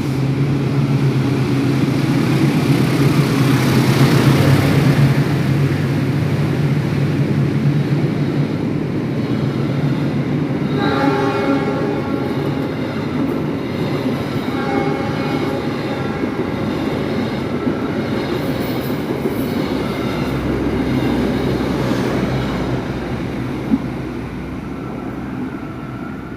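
A train moving through a railway station: a locomotive engine runs with the rumble of wheels on rails, loudest about four seconds in. A horn sounds briefly about eleven seconds in and again a few seconds later, and the rumble fades toward the end.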